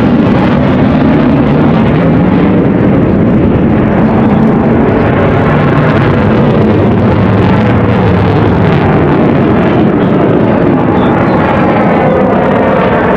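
Eurofighter Typhoon's twin EJ200 turbofan engines roaring loudly as the fighter flies its display pass. The steady rushing roar has a swooshing quality that sweeps up and down in pitch as the jet moves past.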